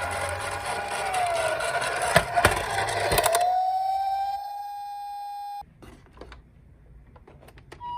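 Electronic wailing siren of a toy emergency vehicle, gliding up and down over a rolling rattle with a few knocks, then holding one note and cutting off suddenly about five and a half seconds in. Faint clicks follow.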